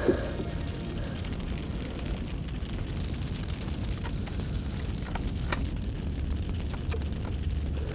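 Steady low rumble of distant battle, like far-off artillery, with a few faint sharp cracks scattered through it. The clearest crack comes about five and a half seconds in.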